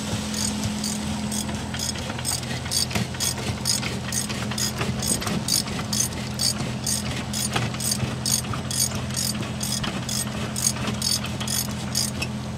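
Ratchet handle clicking steadily, about three clicks a second, as it cranks open the discharge gate of a hopper-bottom trailer unloading almonds. A truck engine idles underneath as a steady low hum.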